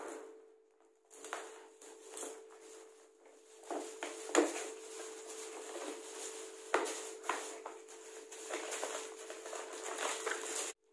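Cardboard gift box being handled and opened by hand: rustling and scraping of the box and its contents, with several sharp clicks and knocks, the loudest about four and a half and seven seconds in. A steady hum runs underneath.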